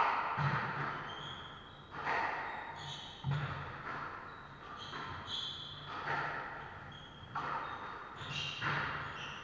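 Squash rally: the ball cracking off rackets and the court walls about once a second, each hit echoing in the enclosed court, with sports shoes squeaking and thudding on the wooden floor between shots.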